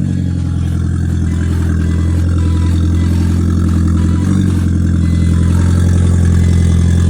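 Audi TT 1.8T four-cylinder turbo engine running loud and steady with the exhaust open at a snapped flex pipe, with a short small rev about four seconds in. The exhaust leak makes it sound like a straight pipe.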